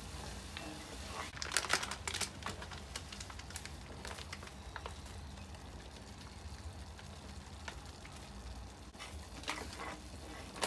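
Black pepper sauce crackling and bubbling in a cast-iron skillet over a gas burner. A wooden spoon stirs and scrapes the pan in louder bursts about one and a half seconds in and again near the end.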